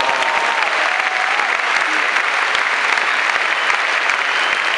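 Tennis stadium crowd applauding steadily after a point ends, with a cheer rising over the clapping in the first second or so.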